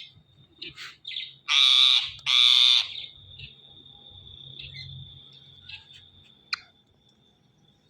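Ring-necked parakeet calling: two loud, harsh screeches about a second and a half in, with a few short chirps around them. A faint, steady high tone then runs on for several seconds under a few more short chirps.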